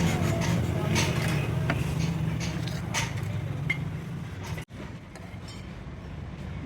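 A steady low machine hum with scattered light clicks and taps. The sound drops out for an instant about two-thirds of the way through, then the hum goes on a little quieter.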